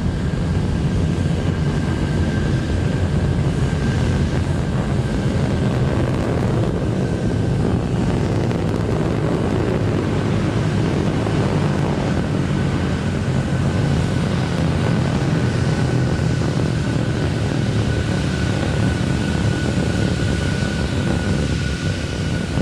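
Rocket engines roaring during ascent: Terran 1's first stage, nine Aeon 1 liquid-oxygen/methane engines, giving a steady, deep rumble with a crackling hiss above it, plus a thin steady high tone.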